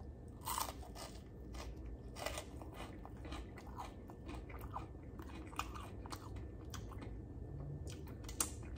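Close-up chewing of a bite of crispy fried Nashville hot chicken tender: an irregular run of soft crunches and mouth clicks.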